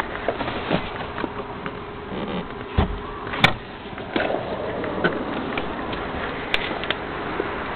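Knocks and rustles of a hand-held camera being handled and moved about, over a steady faint buzzing hum.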